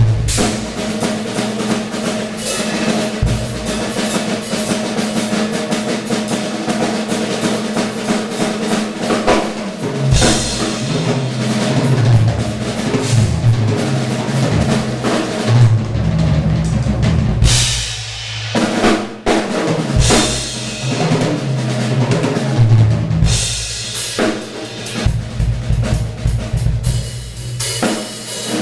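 Acoustic drum kit played solo in fast improvised fills: dense snare and tom strokes with cymbals, with heavy bass drum strokes coming in about ten seconds in and a short break a little past halfway.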